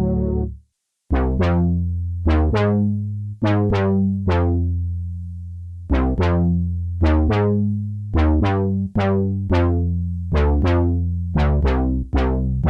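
Arturia JUN-6V, a software emulation of the Roland Juno-60 analog polysynth, playing a plucky bass pattern after a held chord fades out. Each note opens bright and closes quickly as the filter sweeps down, over a sustained low body, in an uneven repeating rhythm.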